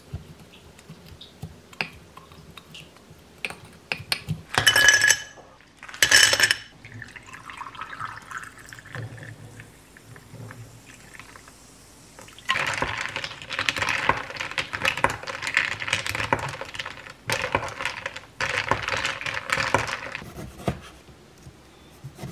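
A wooden muddler tapping lime and mint in a tall glass, then two loud clatters. Soda water is poured into the glass over ice, fizzing steadily for about eight seconds, starting about twelve seconds in.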